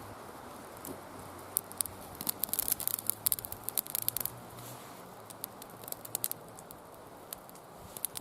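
Small fire of tinder and kindling crackling as it catches, with quick clusters of sharp pops and snaps over a low wind noise.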